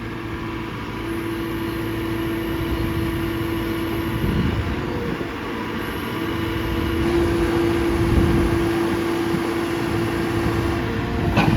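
JCB 4.4-litre diesel engine of a JCB 3CX backhoe loader running steadily, with a steady whine over the engine that drops out briefly midway.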